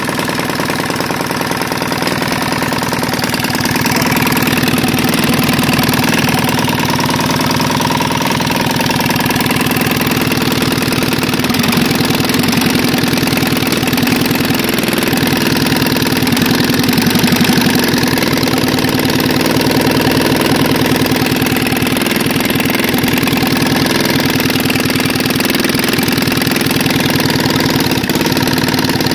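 Prototype Hybrid Rotary Engine, a crankless opposed-piston engine with a rotary valve, running steadily with a fast, even firing beat. It picks up slightly about four seconds in. The builder judges that its ignition timing needs changing.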